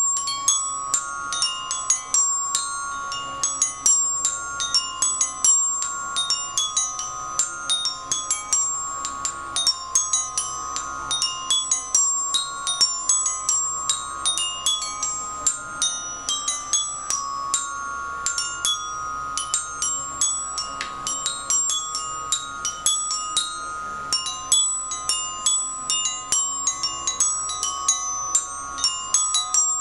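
Glockenspiel struck with mallets: a continuous run of bright, ringing metallic notes, two or three strikes a second.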